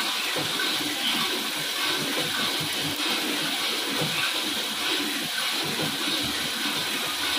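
Freshly roasted Arabica coffee beans churning in a coffee roaster's cooling tray, stirred round by rotating arms: a steady rushing rustle that stays even throughout.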